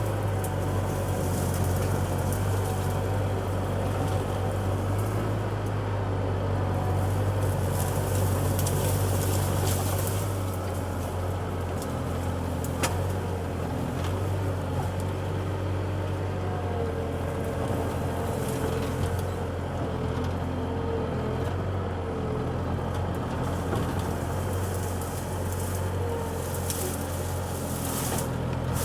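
Skid steer engine running steadily under work, with a faint wavering whine in the second half and one sharp knock about 13 seconds in.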